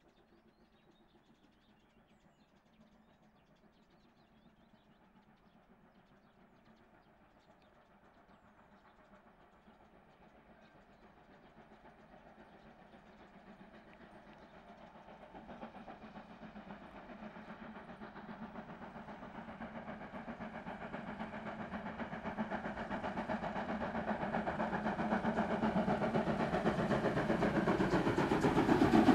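Steam train with locomotives 01 509-8 and 52 8079-7 climbing a steep grade and approaching. It is barely audible for the first ten seconds or so. Its rapid exhaust beats then grow steadily louder as it nears.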